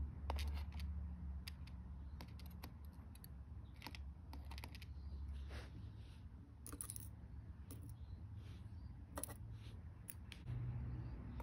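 Faint, light clicks and ticks at irregular intervals, small plastic keyboard parts and tweezers being handled during a MacBook butterfly keycap replacement, over a low steady hum.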